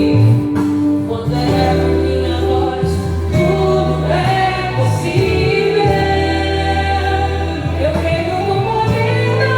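Brazilian gospel song: sung vocals over a sustained instrumental backing, with held, gliding melody notes.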